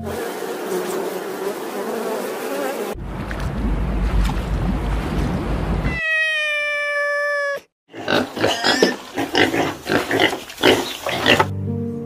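A run of different animal sounds one after another: first a dense buzzing hiss, then a rougher noise with a deep rumble, then one long call held at a steady, slightly falling pitch, and after a short break a quick irregular series of short harsh calls.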